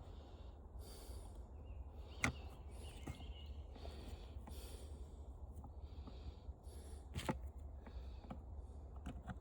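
Faint handling noises of a hand tool working on fan parts, with two sharp clicks, one about two seconds in and one about seven seconds in, over a low steady hum.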